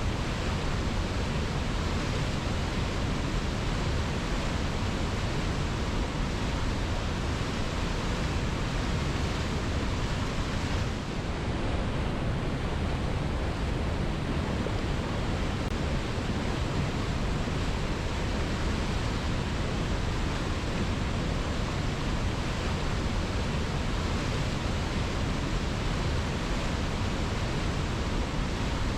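Waterfall: a steady, even rush of falling water, with a brief dip about eleven seconds in.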